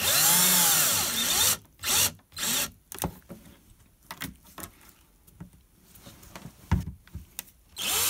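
Cordless drill-driver driving an outlet's mounting screw: the motor whine rises and falls over about a second, followed by two short bursts. Then light clicks and taps of hand handling, and the drill starts up again at the very end.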